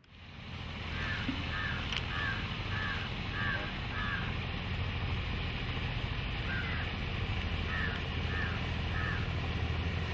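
A motorised houseboat's engine running with a steady low drone as it passes, fading in over the first second. Over it, crows caw in two runs of quick short calls, about two or three a second.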